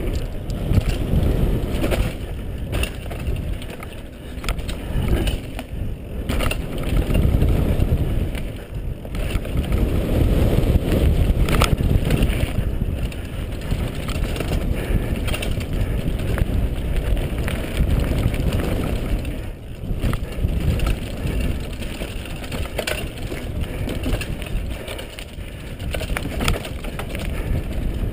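Mountain bike ridden fast down a dirt singletrack: a steady rumble of tyres on dirt and wind on the microphone, with frequent rattles and knocks from the bike as it hits bumps and roots.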